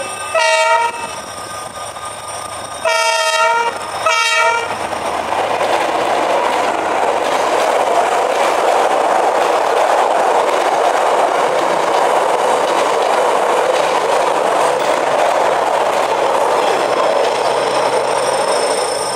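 D19E diesel-electric locomotive's horn sounding three blasts, one short and then two close together, the warning for a level crossing. Then the steady rolling noise of the passenger coaches' wheels on the rails as the train passes close by.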